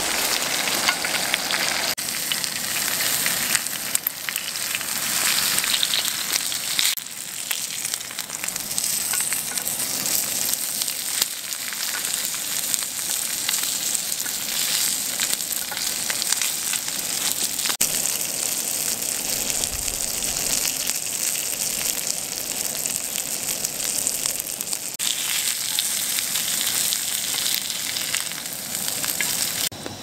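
Assorted fish pan-frying in oil on a round griddle pan, with a steady sizzle and fine crackles of spitting oil.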